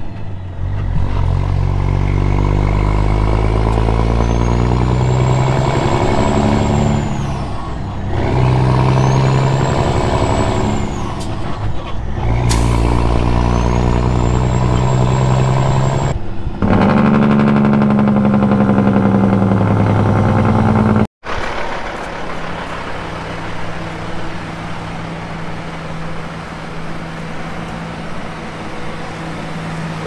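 Peterbilt semi truck's diesel engine pulling up through the gears: the pitch climbs in each gear and drops at each shift, about four times, with a high whistle rising and falling alongside. It then runs steady and loud. After a sudden cut about two-thirds through, a quieter engine runs steadily.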